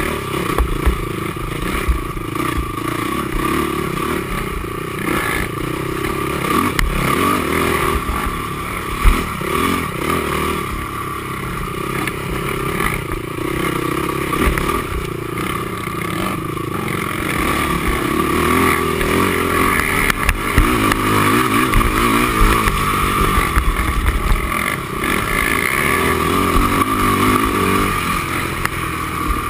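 Honda TRX450R quad's single-cylinder four-stroke engine running hard at race pace, its pitch rising and falling with the throttle. Frequent rattles and knocks come from the machine over rough ground, with one sharp bang about nine seconds in.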